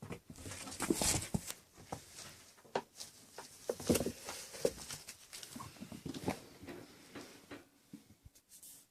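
Six-week-old kittens playing: irregular scuffling and pattering with light knocks and taps, dying away near the end.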